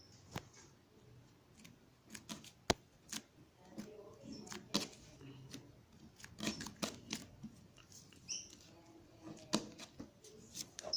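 Slime being squeezed and worked by hand, giving irregular sticky clicks and small pops.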